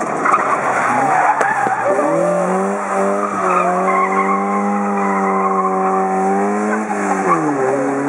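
Rally car's engine revving hard as it pulls away out of a tight bend, after tyre scrub and squeal in the first couple of seconds. The engine note climbs, holds high, drops at an upshift about seven seconds in and climbs again.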